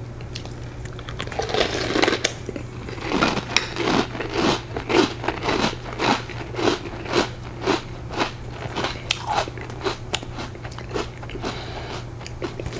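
A person chewing a mouthful of crunchy Pickle Rick cereal loops in milk, with a regular run of crunches about two a second.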